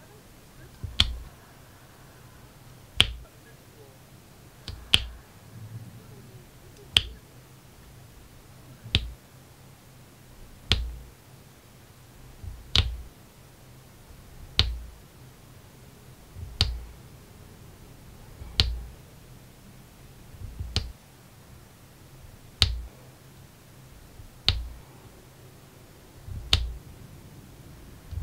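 Diamond painting pen setting resin drills one at a time onto the adhesive canvas: a sharp click about every two seconds, now and then a quick double click.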